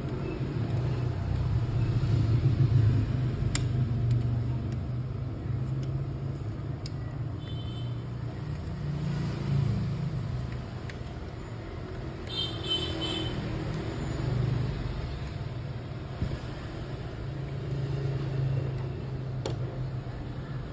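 A steady low rumble runs throughout, with a few light clicks of plastic and metal parts of a copier fuser unit being handled and fitted.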